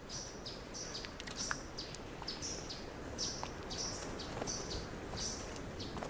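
A small songbird chirping repeatedly, short high calls that drop in pitch, about two a second.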